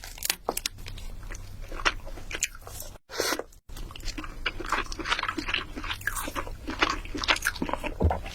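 Close-miked ASMR eating: crunchy bites and chewing, a dense run of irregular crackles. The sound drops out to dead silence twice, briefly, about three seconds in.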